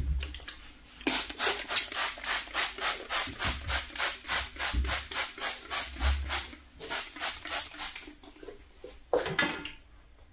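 Hand trigger spray bottle misting a houseplant. It gives a rapid run of short hissing spritzes, about three or four a second, for several seconds, then stops, with one brief louder rustle near the end.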